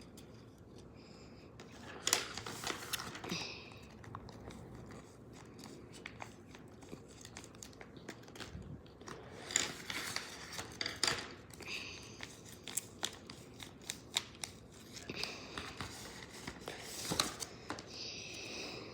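Plastic blind-bag packet being handled and opened: crinkling and tearing with scattered sharp clicks and rustles.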